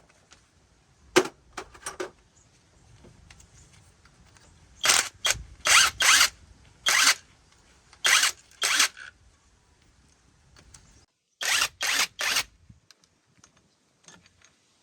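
Mechanic's tool work: a series of about thirteen short, sharp mechanical bursts in three clusters, with quiet gaps between.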